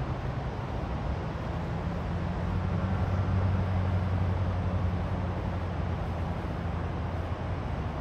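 A low engine hum that swells a few seconds in and then eases off, over a steady rushing noise.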